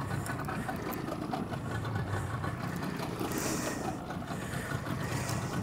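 A fishing boat's engine idling steadily, a continuous low rumble, with a brief hiss about three and a half seconds in.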